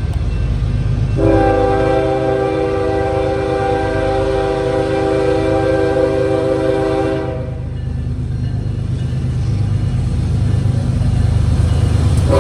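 Kansas City Southern freight locomotive's air horn sounding one long chord blast, starting about a second in and stopping about seven seconds in. Under it runs the low rumble of the approaching diesel locomotives, which grows louder near the end.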